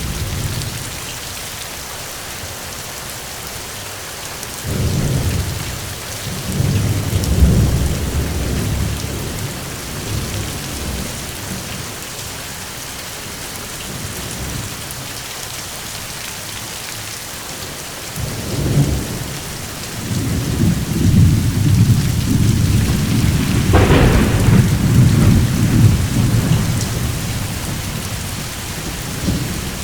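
Steady rain falling, with thunder rumbling twice: a roll about five seconds in that lasts a few seconds, and a longer, louder one from about eighteen seconds in, with a sharper crack about two-thirds of the way through.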